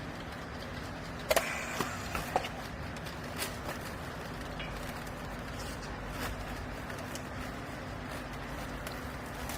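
Steady hum of a running machine, with a cluster of sharp knocks and clicks between about one and two and a half seconds in, and a few fainter clicks later.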